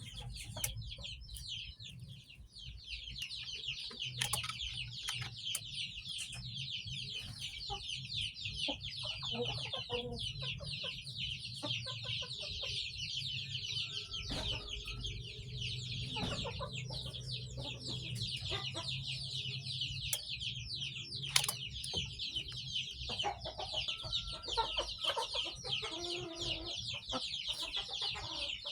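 Many chicks peeping together in a dense, continuous chorus of rapid high chirps, over a steady low hum.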